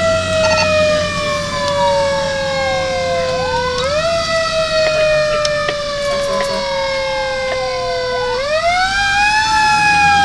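Fire engine siren wailing. Its pitch sweeps up quickly about four and eight seconds in and sinks slowly in between, over the truck's low engine rumble.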